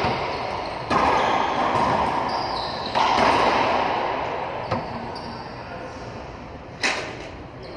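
Racquetball being played: sharp cracks of racquet on ball and ball off the walls, echoing in the enclosed court. Two loud hits about a second and three seconds in, then lighter knocks near the middle and near the end.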